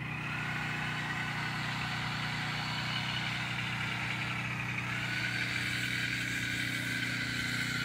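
An engine-driven generator running at a steady speed: a constant low hum with a steadier, higher whine above it that shifts slightly about five seconds in.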